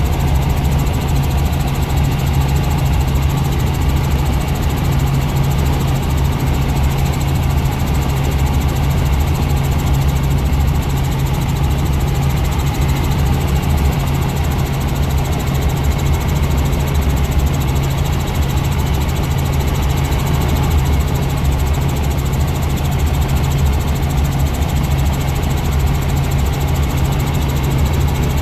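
Helicopter in flight, heard from inside the cabin: a loud, steady low hum of the rotor and engine that holds constant without change.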